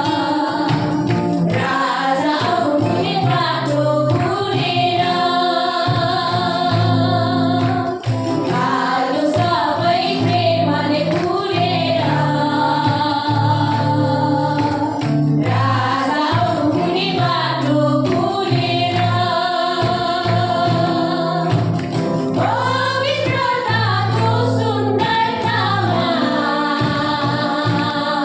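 A group of women singing a Christian worship song together, with sustained low accompaniment notes underneath.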